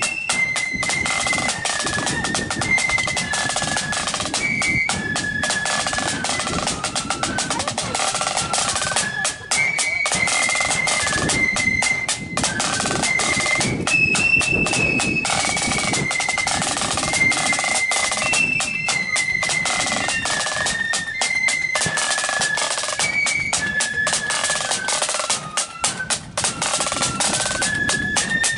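Marching flute band playing a tune: a single flute melody over the rattle and rolls of a line of snare-type side drums.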